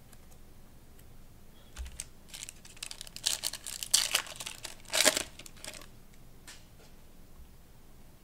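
Foil wrapper of a Panini Prizm Draft Picks football card pack being torn open and crinkled: a string of sharp crackles lasting about four seconds, loudest in the middle.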